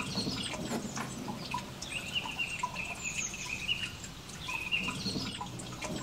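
Small birds chirping, with short high chirps and trills repeating every second or so.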